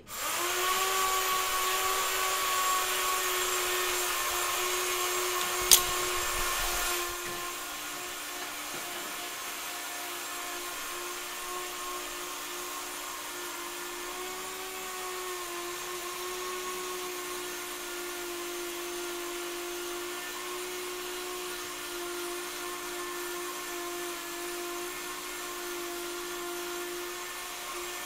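Metal lathe switched on at the start and running steadily with a whine, turning a crankshaft held in its chuck. There is a sharp click about six seconds in, and the running drops a little in loudness a second later.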